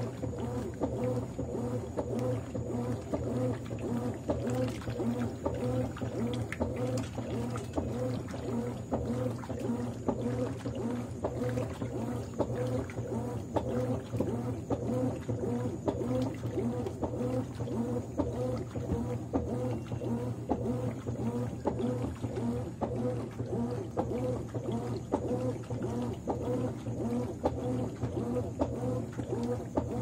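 Consul 13 kg top-loading washing machine agitating a tub of water and clothes: a steady motor hum with water churning in a regular, pulsing rhythm.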